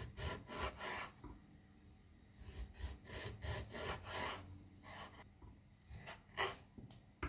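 Kitchen knife slicing raw beef on a cutting board: a series of short back-and-forth sawing strokes in little groups, with brief pauses between cuts.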